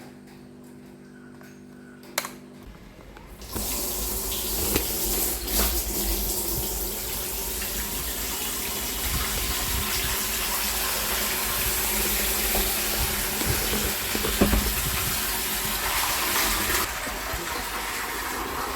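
Faint steady hum, then water starts running steadily about three and a half seconds in, a loud even rush through the plumbing.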